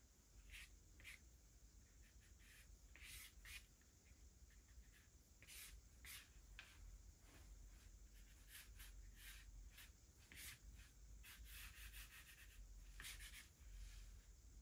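Faint, irregular scratching strokes of a sketching tool dragged across a drawing surface, some single and some in quick runs.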